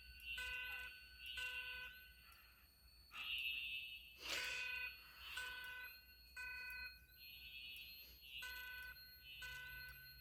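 Fire alarm speaker sounding the code 3 (temporal-three) evacuation tone: three short beeps, then a pause, repeating. A sharp click cuts in about four seconds in.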